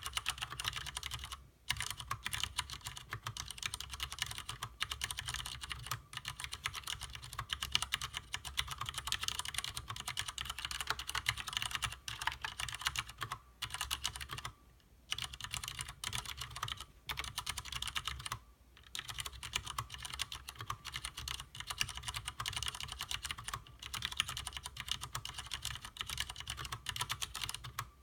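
Continuous fast typing on a Leopold FC750R mechanical keyboard with stock Cherry MX Clear tactile, non-clicky switches: dense keystroke clacks, broken by brief pauses about 1.5 s, 15 s and 18 s in.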